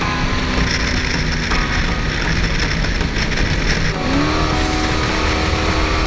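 Jetboat's LS1 V8 driving a Scott jet unit at speed, with wind and water rushing past the open boat. About four seconds in, the engine note rises and then holds higher.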